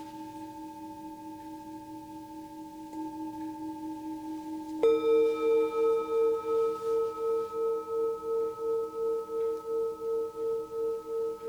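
Tibetan singing bowls ringing: one bowl hums on from a strike just before, then a second, higher-pitched bowl is struck about five seconds in. The second bowl is louder and rings on with a steady wavering pulse, about three a second.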